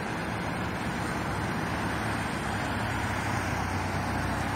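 Steady car noise: a low engine hum under an even rush of sound, with no breaks or changes.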